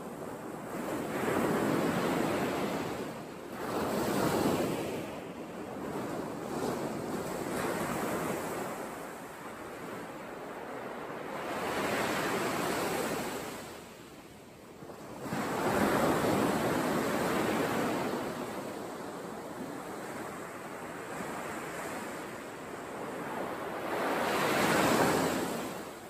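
Surf breaking on a sandy beach: a steady wash of waves that swells and fades every few seconds, with the strongest surges about two-thirds of the way through and near the end.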